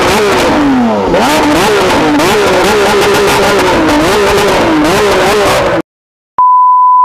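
Lamborghini Aventador SVJ's naturally aspirated V12 revved hard again and again, the pitch climbing and dropping in quick blips. It cuts off suddenly just before six seconds in. After a short silence a steady, loud test-tone beep starts.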